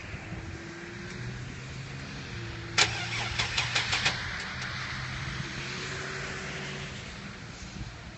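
GMC Safari van's engine cranking on the starter without catching, a steady low whirr. A quick run of sharp knocks about three seconds in.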